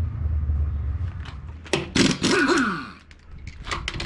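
Pneumatic impact wrench on wheel nuts, rattling in short bursts with a whine that falls as it spins down. A steady low hum runs underneath at the start.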